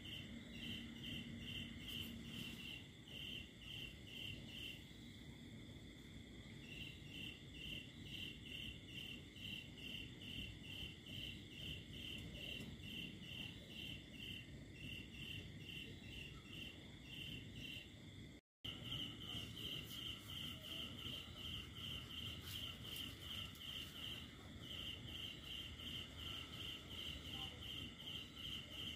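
Crickets chirping in a steady rhythm, about three short chirps a second, over a fainter continuous trill. The sound cuts out completely for an instant about eighteen seconds in, then carries on.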